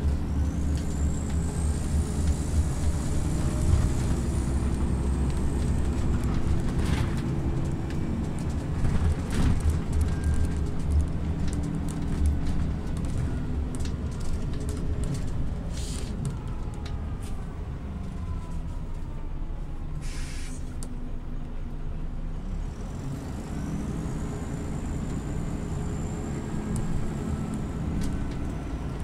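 Scania OmniLink CL94UB city bus driving. A high whine and the engine note rise as it gets under way early on, fall as it slows in the middle, and rise again near the end. There is a short hiss of compressed air about two-thirds of the way through.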